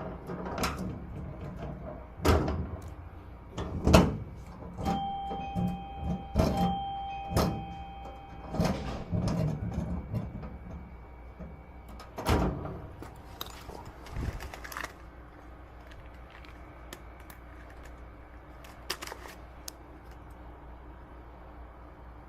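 A locked door being worked open with locksmith tools: scattered knocks, clicks and rattles of the door and its lock, most of them in the first fifteen seconds. A thin steady tone sounds for a few seconds about five seconds in.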